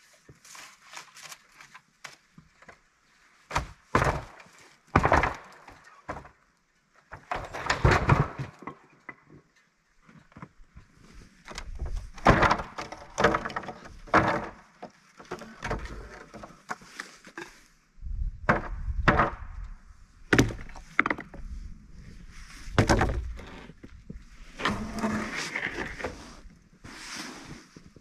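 Rough-sawn wooden boards knocking and clattering against one another as they are pulled off a stacked pile and gathered into an armful: a long run of sharp wooden knocks in irregular clusters.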